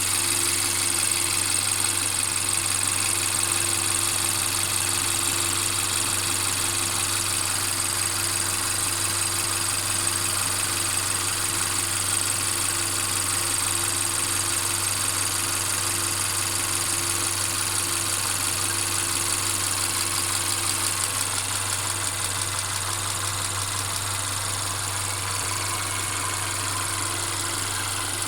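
Mercedes CLA 250's two-litre turbocharged four-cylinder engine running steadily at idle, with the continuous rattling noise the owner is documenting as a fault. A mid-pitched tone in the sound fades out about 21 seconds in.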